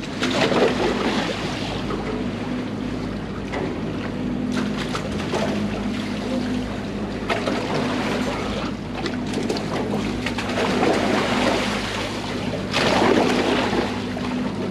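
Steady low drone of the boat's machinery under wind on the microphone and water washing around the hull, with a louder rush of noise near the end.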